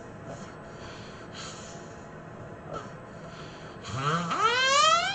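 A sleeper snoring: soft breaths, then about four seconds in a loud snort that rises steeply in pitch and drops away sharply at its end.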